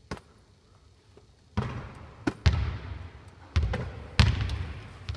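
A volleyball struck by hand with a short smack, then the ball bouncing on a hard indoor court floor: a string of sharp thuds at uneven gaps, each echoing in a large empty sports hall.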